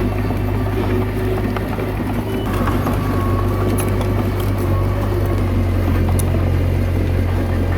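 Komatsu D21A bulldozer's diesel engine running steadily, with a few faint clicks about halfway through.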